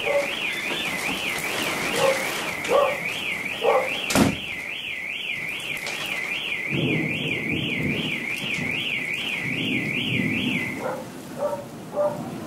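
Car alarm siren warbling up and down in pitch about three times a second, set off by the thunderstorm; it stops near the end. A single sharp crack cuts across it about four seconds in.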